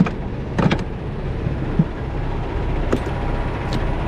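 A 2018 Freightliner semi truck's diesel engine idling steadily, with a few short knocks and clicks over it, the loudest about half a second in.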